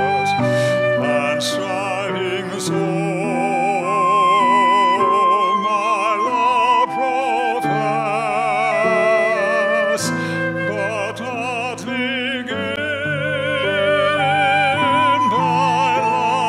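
A hymn verse sung in a classical style with wide vibrato over steady, sustained instrumental accompaniment.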